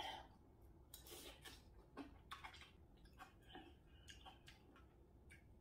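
Faint eating sounds: a person chewing mouthfuls of whole-leaf kimchi and rice, with a string of small mouth clicks and smacks.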